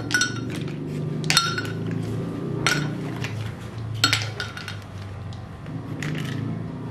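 Ice cubes dropped one at a time into a glass blender jar of sliced peaches, each landing with a sharp clink, about one every second and a half. A low steady hum runs underneath.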